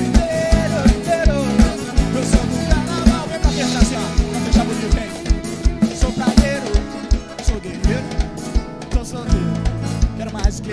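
Live sertanejo band playing an upbeat song: a drum kit keeping a steady fast kick beat of about three to four beats a second, with bass, accordion and acoustic guitar.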